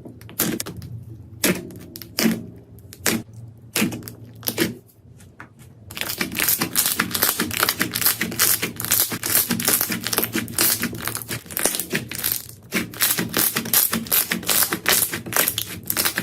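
Slime being pressed and squeezed by hand. First come a few separate pops and clicks, then from about six seconds in a dense, fast crackling.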